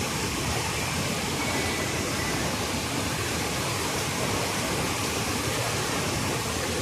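Floodwater of a swollen river rushing steadily.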